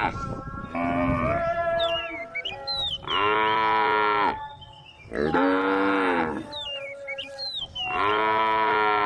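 Cows mooing one after another, several overlapping voices, with three loud drawn-out moos of about a second each.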